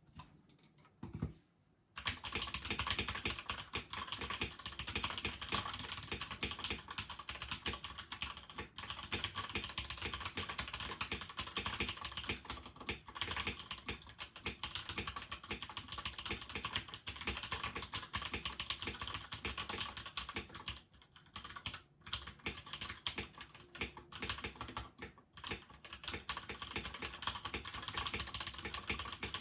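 Fast continuous typing on a custom mechanical keyboard with Gateron Milky Yellow linear switches and double-shot PBT keycaps: a dense run of keystroke clacks that begins about two seconds in and breaks off briefly twice near the end.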